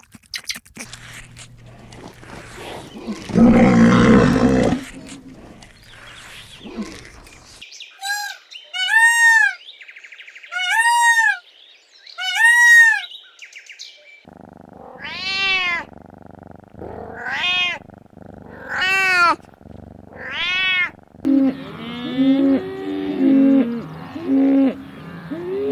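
Farm animals calling: a loud, low call about four seconds in, then a run of short, high calls, each rising and falling, repeated every one to two seconds, and lower overlapping calls near the end.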